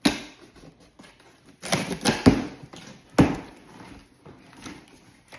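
Knocks, thumps and rustles of a cardboard box and its packaging being handled while a non-stick cookware set is unpacked: a sharp knock at the start, a cluster of thumps and rustling about two seconds in, and another sharp knock about three seconds in.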